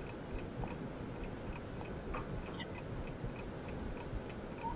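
Quiz-show countdown timer ticking steadily, about three light ticks a second, over low background noise.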